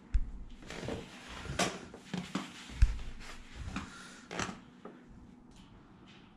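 A string of irregular knocks, light thumps and short rustles, as of things being handled and moved about, with the loudest thump about three seconds in; it dies away near the end.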